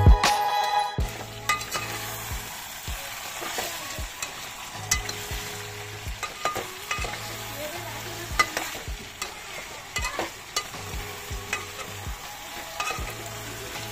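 Beef curry frying in its masala in a pot, sizzling steadily, while a slotted metal spatula stirs it with irregular clicks and scrapes against the pot. This is the 'kosha' stage, where the meat is stir-fried well in the spices. Background music cuts out about a second in.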